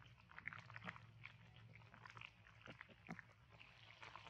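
Near silence: faint ambience of scattered soft clicks and chirps over a low steady hum.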